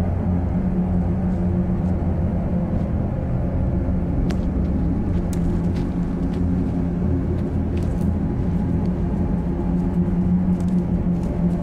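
A steady low droning rumble with several held low tones, an unchanging ominous drone from the film's soundtrack. A few faint light snaps sound over it.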